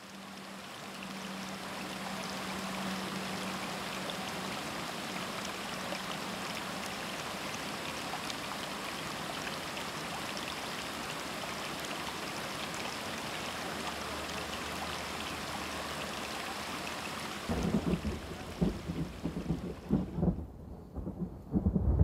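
Steady hiss of a stream running over rocks. About two-thirds of the way in, rolling thunder starts in heavy, uneven rumbles, and the water sound fades out under it.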